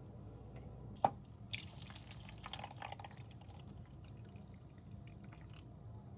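Slime being handled or mixed: a sharp click about a second in, then about two seconds of faint crackling, wet-sounding noises.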